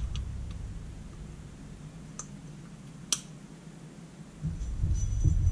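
Small metal parts of a Holley electric fuel pump being handled during reassembly: a few light clicks, one sharper click about three seconds in, then duller handling noise near the end.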